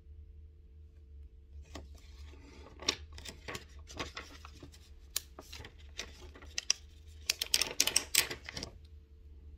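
Crinkling rustles and quick sharp clicks of a sheet of plastic face stickers being handled and peeled, starting about two seconds in and growing thickest near the end, over a low steady hum.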